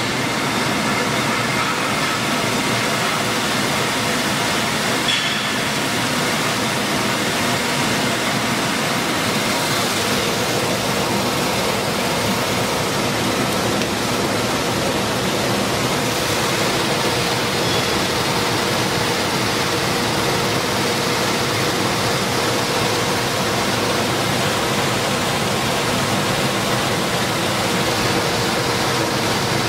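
6FT-PA soybean grits milling machine running steadily: an even rushing noise with a faint steady hum in it.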